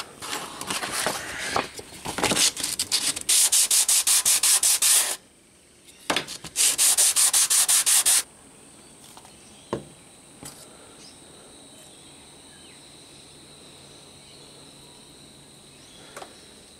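Small wooden pattern strips rubbed back and forth on a sheet of sandpaper laid flat on the bench, about four or five quick strokes a second, in two runs that stop about eight seconds in. A faint steady high-pitched hum remains after that, with a couple of light taps of wood on the bench.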